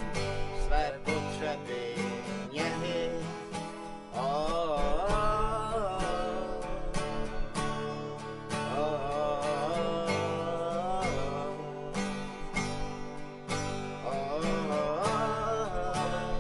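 Acoustic guitar strummed steadily, with a wavering melody line that bends in pitch coming in over it in three phrases, the first about four seconds in and the last near the end.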